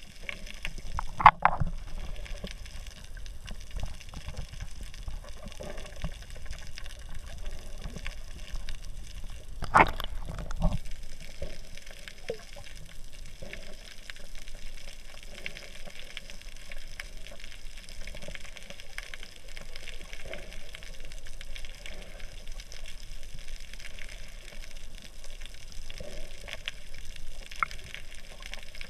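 Muffled underwater sound of sea water moving around a submerged camera, a rumbling, bubbling wash, with two louder sudden bursts, one about a second in and another near ten seconds.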